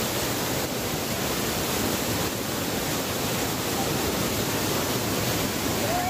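Steady rush of falling water from a waterfall running full after heavy monsoon rain.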